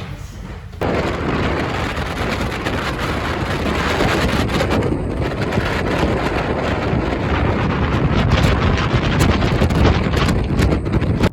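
Strong wind buffeting the microphone, a loud, gusting noise that starts suddenly about a second in and stops abruptly at the end.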